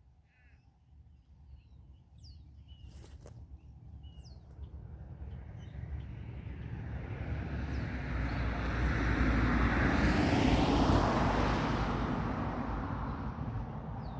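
A vehicle passing on a road: a rushing noise with a low rumble that slowly builds to its loudest about ten seconds in, then fades away. A few faint bird chirps come early on.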